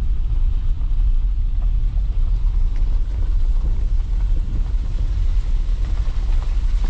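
A vehicle driving along, with a steady low rumble of engine and road noise.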